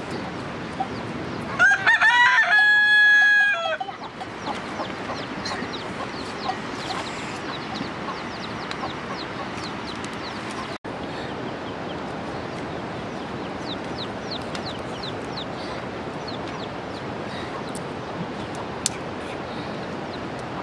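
A rooster crows once, a loud call of about two seconds starting near two seconds in, over a steady background hiss. Faint short high chirps follow later.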